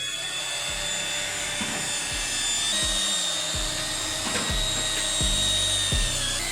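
Background music with a steady low beat and held tones.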